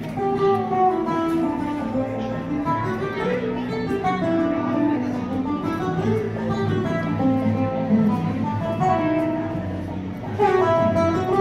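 Guitar playing a plucked melody over bass notes, growing louder about ten seconds in.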